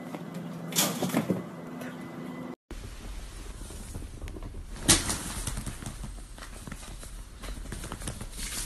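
A cat lunging at a window, with a quick cluster of thumps and bumps about a second in. Then, in a carpeted room, a single loud sharp knock and small scuffling clicks around a scampering chinchilla.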